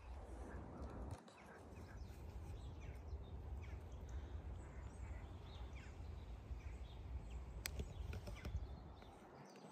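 Faint outdoor garden ambience: a steady low rumble on the microphone, with scattered faint bird chirps and one sharp click about three-quarters of the way through.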